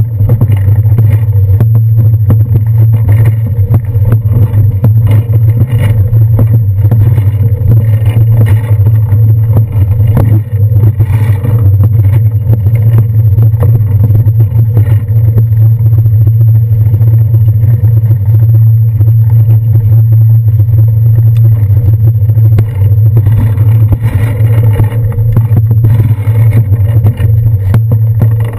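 A loud, steady low hum under constant small rattles and knocks, picked up by a handlebar-mounted action camera in its housing as the bicycle moves along slowly.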